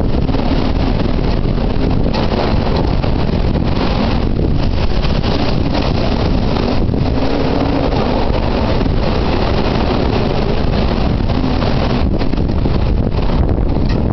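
Typhoon-force wind buffeting the microphone: loud, unbroken rushing noise with a heavy low rumble.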